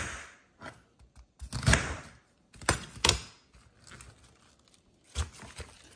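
Knife cutting a green cabbage on a glass cutting board: a handful of sharp knocks as the blade meets the glass, with crisp crunching and crinkling of the leaves, then cabbage pieces rustling as they are gathered off the board by hand.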